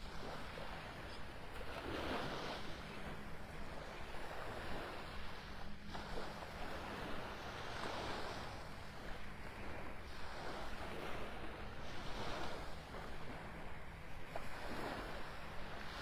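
Small, gentle Gulf waves washing onto the sand, the surf swelling and fading every two seconds or so, over a steady low rumble of light wind on the microphone.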